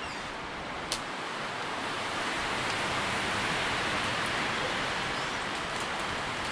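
Wind through tree leaves: a steady rustling hiss that swells in a gust around the middle. There is one sharp tick about a second in.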